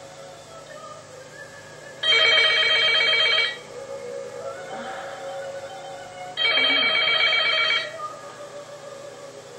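Telephone ringing twice, each ring a fast-trilling bell about a second and a half long, about four seconds apart.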